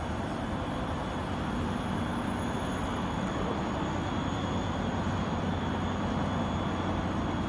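Steady running noise of factory machinery on a carpet production line, with rollers turning: an even rumble with a low hum and a faint high whine.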